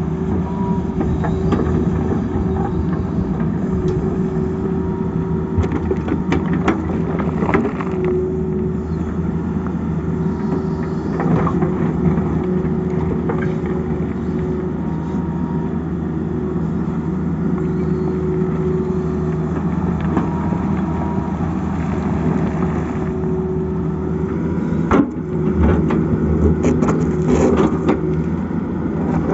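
Tata Hitachi excavator's diesel engine running steadily under load, with a hydraulic whine that comes and goes as the arm works. The steel bucket scrapes and knocks against rock, with one sharp knock and a run of clatter near the end.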